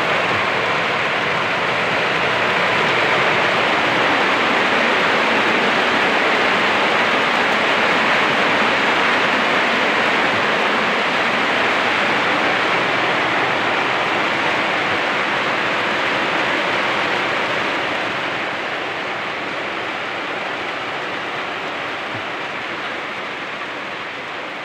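Heavy rain falling steadily, a dense hiss that slowly eases over the last few seconds.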